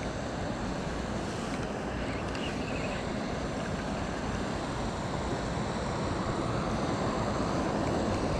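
Steady rushing noise of wind buffeting the camera's microphone, growing a little louder near the end.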